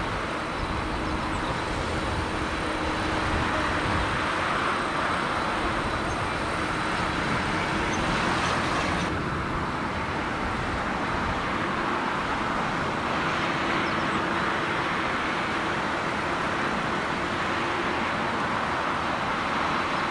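Steady hum of Boeing 787 airliners' jet engines at taxi power, with a thin high whine that cuts off about nine seconds in.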